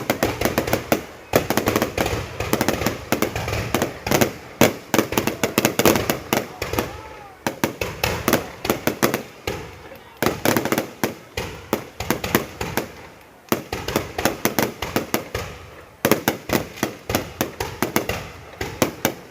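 Fireworks crackling: dense strings of sharp cracks and pops, many a second, coming in volleys that swell and fade every couple of seconds.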